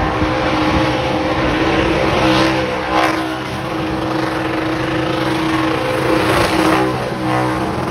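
A muscle car's engine held at high revs through a burnout, its rear tyres spinning on the pad; the pitch stays high and steady, with a few short surges, about three and six and a half seconds in.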